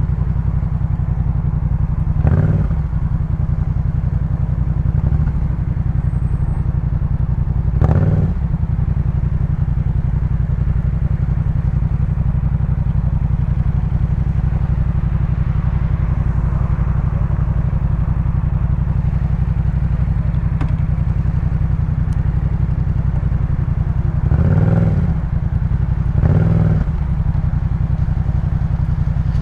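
2018 Yamaha MT-07's 689 cc parallel-twin engine running through a Jeskap K4 full exhaust system, holding fairly steady revs under way. There are a few short, louder surges in the sound.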